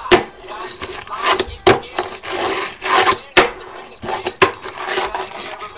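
Fingerboard rolling across a table under a finger, its small wheels making a rolling rumble, broken by sharp clacks as the board is popped and lands, several times.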